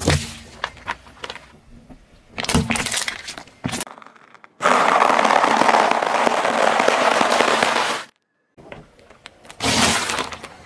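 A car tyre slowly crushing one thing after another. First a drink pouch bursts with a short squirt. About halfway through, a pile of crunchy candies crackles under the tyre for about three seconds, the loudest part, and ends abruptly. Near the end, raw eggs crack.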